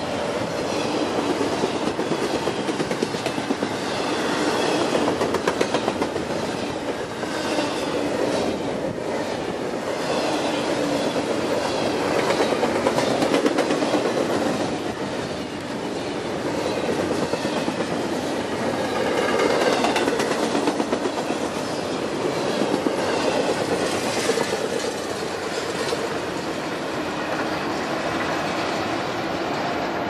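Double-stack intermodal train's loaded well cars rolling past close by, steel wheels clattering steadily over the rail joints.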